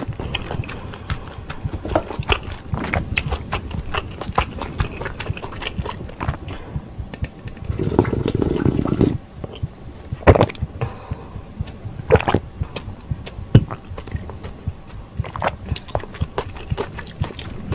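Close-up eating sounds of ramen broth being sipped and slurped from a spoon and bowl, with sharp clicks of the spoon against the bowls. About eight seconds in comes a longer stretch of slurping as the broth is drunk straight from the big bowl.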